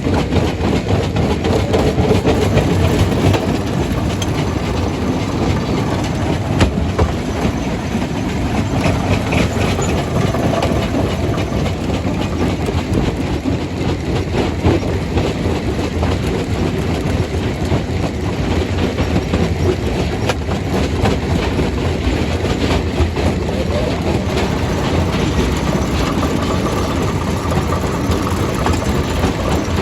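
Jaw crusher crushing rock: a steady, loud low machine rumble with continual irregular clattering and knocking of stone.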